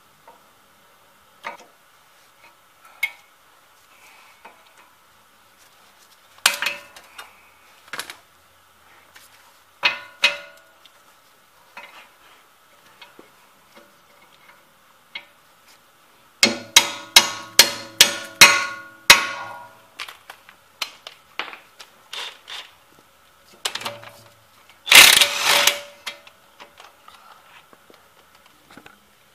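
Hand tools clanking on steel suspension parts at the steering knuckle: scattered taps and clicks, then a quick run of about ten ringing metal strikes, about four a second, around the middle, and a dense clatter near the end.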